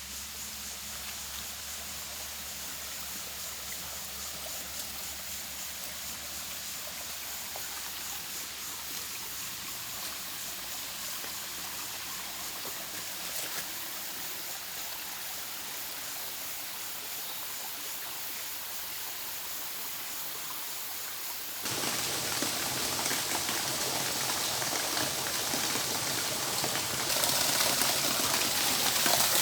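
Running water trickling and splashing steadily, which turns abruptly louder about two-thirds of the way through and louder again near the end.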